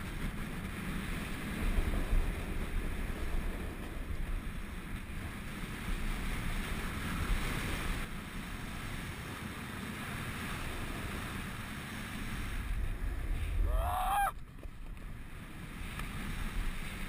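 Wind rushing over an action camera's microphone while riding a snowboard downhill, with the board scraping and hissing over packed snow. About fourteen seconds in, a short pitched sound bends up and down and the rush then drops off.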